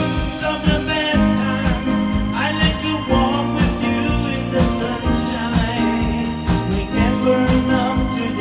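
A song with singing over a band and a steady drum beat.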